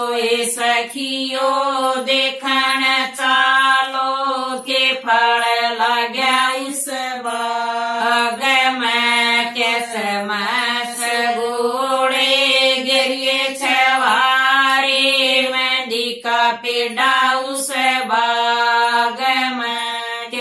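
Group of women singing a Haryanvi wedding folk song to the deities, in unison with no instruments, in a steady chant-like melody held on long notes.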